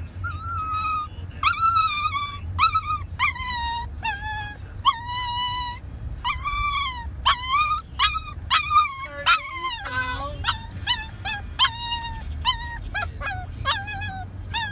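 A young Xoloitzcuintli puppy whining and yelping over and over in short, high-pitched cries, some bending up and down, with one longer falling cry about nine seconds in. A low steady rumble from the car lies underneath.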